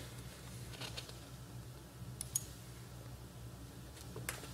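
Quiet room tone with a steady low electrical hum, broken by a few faint clicks about a second in, near the middle and near the end.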